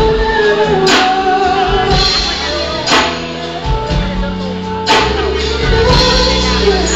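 Live band music with a male singer, held notes and a sharp drum hit about every two seconds.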